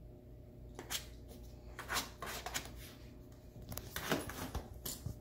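A rat terrier pawing and scratching at a closed cardboard shipping box: several short scratchy rustles, the loudest about two seconds in and again around four seconds.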